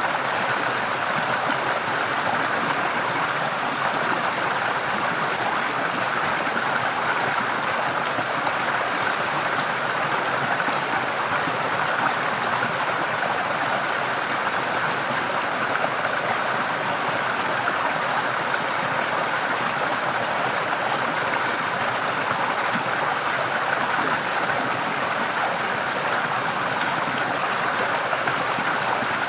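Forest stream of water flowing and splashing with a steady rush.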